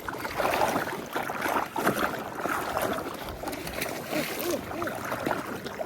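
Water splashing and sloshing close by, in irregular bursts.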